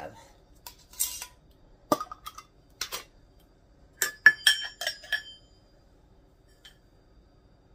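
A small glass jar of dried parsley being handled: scattered taps and clicks, then a quick run of about six ringing glassy clinks from about four seconds in.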